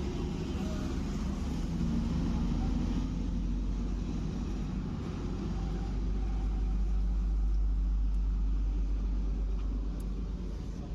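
Tata BS6 truck's diesel engine idling, a steady low rumble.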